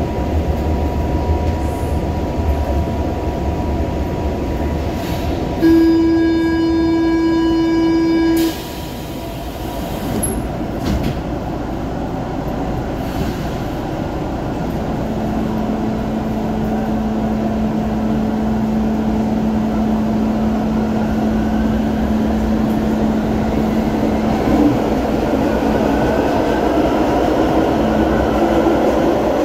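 Brasília Metro series 1000 electric train running through a tunnel, heard from inside the car. About six seconds in, a horn sounds, a single held tone lasting about three seconds. After that the running noise slowly grows louder, with a steady low hum.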